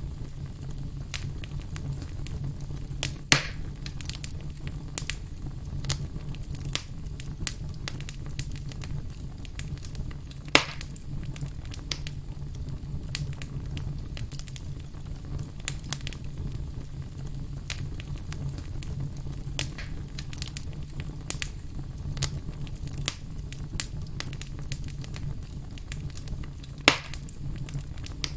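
Firewood burning and crackling over a steady low rumble of flame, with frequent small snaps and three louder pops.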